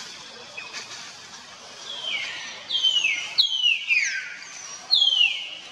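Infant macaque squealing: a run of about five high calls from about two seconds in, each sliding down in pitch.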